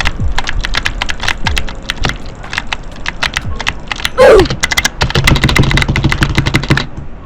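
Mechanical keyboard blue switches clicking in a rapid, dense stream of sharp clicks. About four seconds in, a short loud sound glides down in pitch over the clicking.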